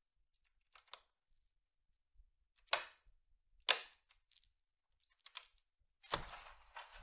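Scattered sharp clicks and taps, the loudest two about a second apart, then near the end a sharp click and a rush of noise as a balcony sliding glass door is unlatched and slid open.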